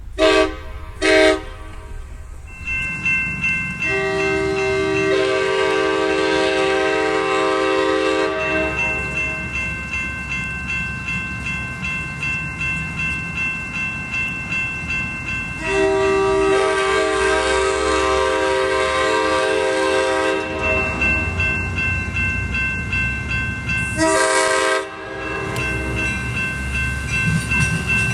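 A Nathan Airchime train horn on a passenger train passing at speed, sounding a crossing sequence. There are two short blasts, then two long chords and a short blast, over the clatter of the wheels. The horn's #2 bell is split, so the chord sounds incomplete.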